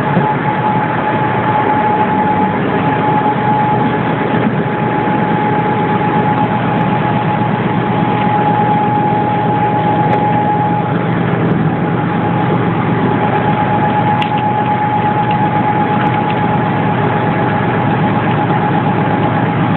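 Heavy machinery running steadily, a constant high whine over a low hum, with no change in speed or load.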